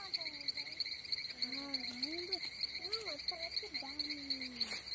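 Frogs and insects calling in a steady chorus, a fast pulsing trill that never lets up. Under it a faint low voice murmurs in rising and falling glides in the second half, and there is one sharp click near the end.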